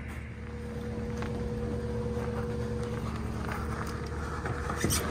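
Honda Big Red three-wheeler, engine off, being pushed by hand down a trailer ramp: its knobby tyres rolling and the rider's footsteps, over a steady low hum, with a sharper knock near the end.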